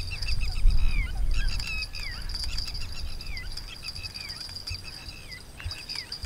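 Birds calling: short chirps that slide downward, repeating about once a second, over a steady high-pitched hum. A low wind rumble on the microphone fades over the first second or two.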